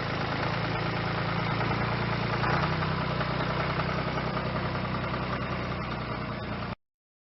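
Tractor engine idling steadily, its pitch stepping up slightly about two and a half seconds in; it cuts off abruptly near the end.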